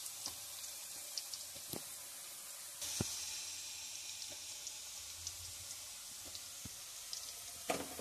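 Thin tapioca (cassava) slices deep-frying in hot oil: a steady sizzle with many small scattered pops and crackles, a little louder from about three seconds in.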